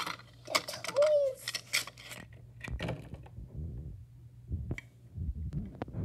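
Small plastic toy pieces clicking and rattling as they are handled: a quick run of sharp clicks in the first two seconds, then softer scattered taps and bumps.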